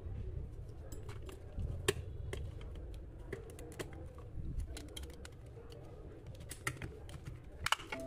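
Plastic trimmer casing handled and pressed together by hand: irregular small clicks and taps of plastic parts, one sharper click about two seconds in, over a low rumble.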